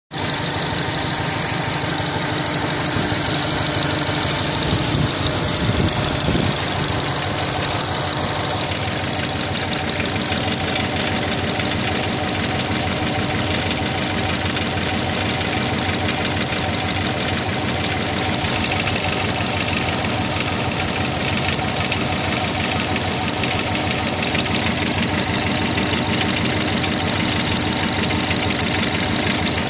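Subaru Legacy GT's turbocharged flat-four engine running steadily with a rapid, regular knock. The owner thinks the knock comes from the turbo but wants to rule out piston slap or a worn big-end bearing.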